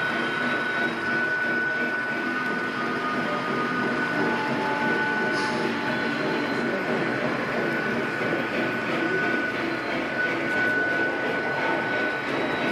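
A string of model railroad coal hopper cars rolling steadily along the layout track, a continuous rolling rumble of small wheels on rail with a thin steady high whine.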